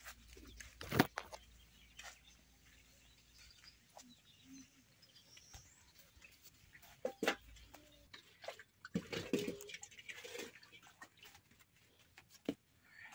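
Footsteps in flip-flops and the knocking of metal pots being carried and set down, with the loudest knock about a second in and more clatter in the second half. Occasional bird calls in the background.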